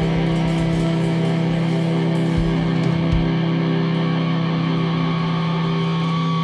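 Live band music: one loud, low guitar note held steady and droning with ringing overtones, with two low thumps about two and a half and three seconds in.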